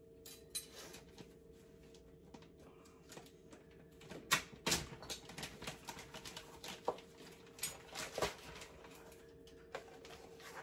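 Kitchen handling sounds: a plastic bag crinkling and measuring spoons clicking while baking soda is measured out, in scattered short clicks and rustles that are busiest from about four to nine seconds in.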